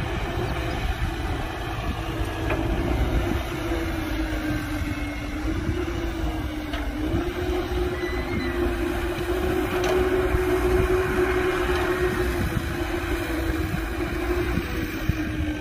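Heavy diesel machinery engine running steadily under a low rumble, with a sustained whine whose pitch steps up slightly about seven seconds in and eases back near the end.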